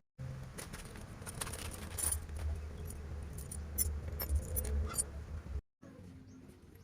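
Light metallic clicks and clinks of tools and small chainsaw parts being handled, over a steady low rumble; the engine is not running.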